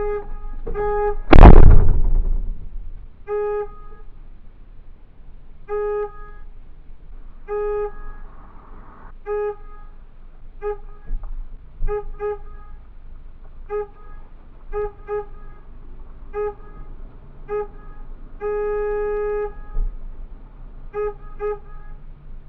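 A car horn honking again and again in an irregular pattern: short single toots, quick double and triple toots, and one longer blast of over a second near the end. About a second in there is a loud, brief thump.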